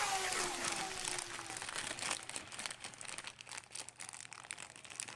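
Slime being scooped out and handled, giving off quick, soft crackling clicks and little pops. A falling tone from a piece of music fades out during the first second or so.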